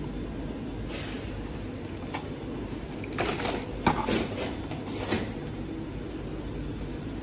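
Sealed plastic food trays being lifted out of and set into the stainless steel mold of a tray sealing machine: a flurry of plastic clatter and knocks about three to five seconds in, over a steady low hum.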